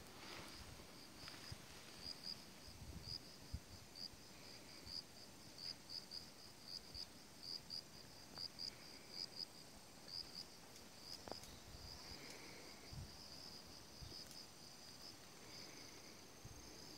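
An insect chirping faintly and steadily in the grass, short high-pitched pulses about two to three times a second.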